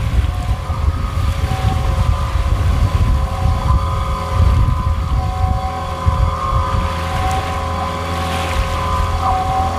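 Small outboard motor running steadily, a held whine of several steady tones, with wind buffeting the microphone in a low rumble.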